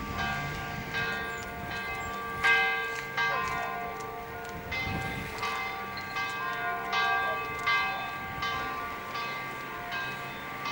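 Church bells ringing: several bells of different pitches struck over and over, about one or two strikes a second at uneven spacing, each note ringing on into the next, with one louder strike about two and a half seconds in.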